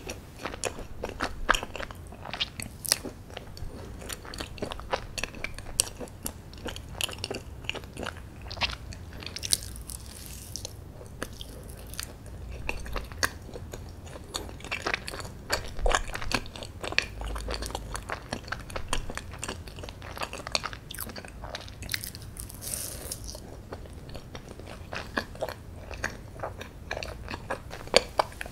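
Close-miked chewing of a dense, fudgy chocolate brownie: a steady stream of soft, sticky mouth clicks and smacks with occasional bites, no steady rhythm.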